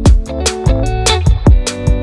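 Background music: a guitar-led track with a steady drum beat.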